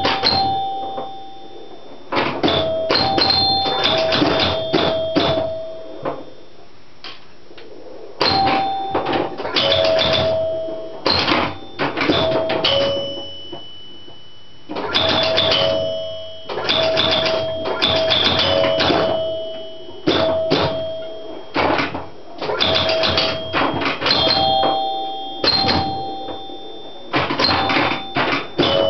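1971 Gottlieb Sheriff electromechanical pinball machine in play: its scoring chimes ring over rapid mechanical clacking. The sound comes in bursts of a few seconds with short quieter pauses between.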